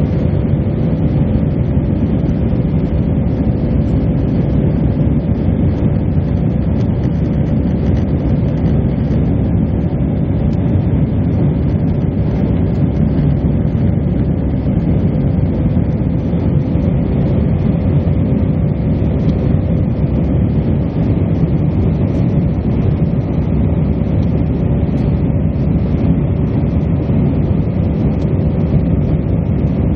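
Airbus A319 cabin noise during the climb after takeoff: the steady low roar of the jet engines and rushing air, with a constant mid-pitched hum running through it.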